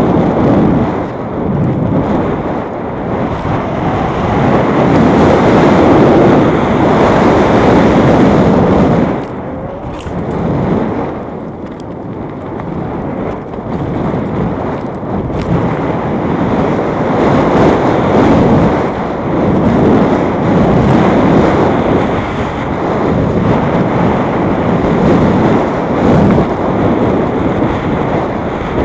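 Wind rush on the microphone of a camera riding a mountain bike downhill fast on a dirt trail, mixed with the rumble of tyres and bike over the ground. It is loud and swells and eases with speed, with a few seconds' lull about a third of the way in.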